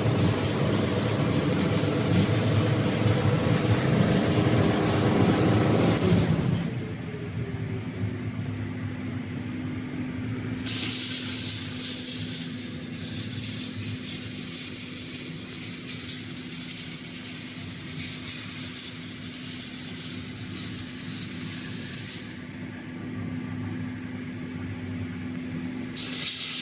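Metal deburring and chamfering sanding machine running: a dense rumble for the first six seconds or so, then a steady motor hum. About ten seconds in a loud hissing rush of abrasive on metal starts and lasts roughly eleven seconds, and it comes back just before the end.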